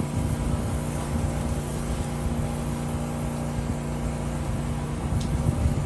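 A pressure washer's engine running steadily under an even hiss of water spray.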